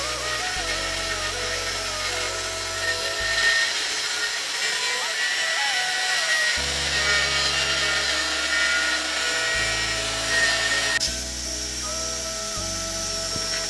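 Background music over an angle grinder's cut-off disc cutting steadily through a motorcycle's steel exhaust pipe.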